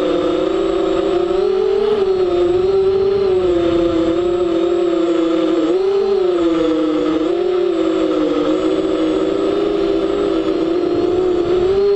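FPV model aircraft's motor and propeller buzzing steadily, the pitch swelling and dipping a little several times as the throttle changes.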